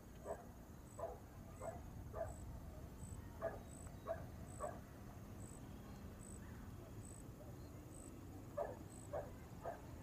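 A dog barking in three bouts of three or four barks each, the barks a little over half a second apart. Under it an insect chirps, a short high chirp repeating about every two-thirds of a second, over a steady high insect drone.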